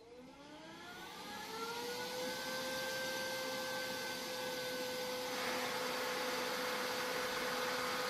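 Neato Botvac D7 robot vacuum starting up: its suction motor spins up with a whine that rises in pitch over about two seconds and settles into a steady whir. About five seconds in, the high whine gives way to a rougher rushing noise.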